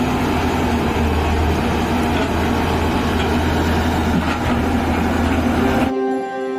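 Hyundai R220LC-7 crawler excavator's diesel engine running steadily while it works the bucket and boom. About six seconds in the machine sound cuts off abruptly and background music takes over.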